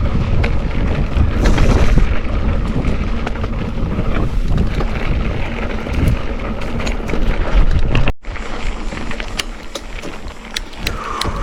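Wind buffeting the microphone while riding, a heavy low rumble with scattered small clicks. It cuts out for an instant about eight seconds in, then goes on a little lower.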